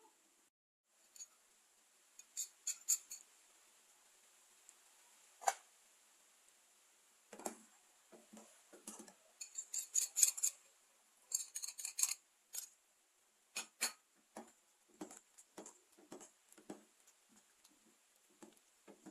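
Short clicks and clinks of kitchen utensils and containers being handled, coming in small clusters, then a run of light taps about two a second in the second half.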